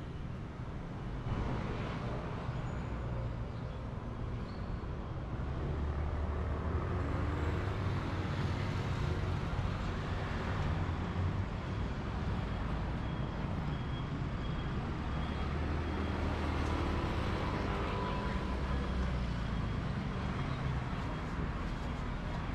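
Street traffic: a steady low rumble of passing vehicles, with faint voices in the background.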